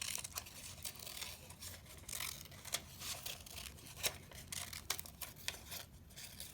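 Scissors snipping bright colored paper, with the crinkle of the paper being handled: a scattered run of small clicks and rustles.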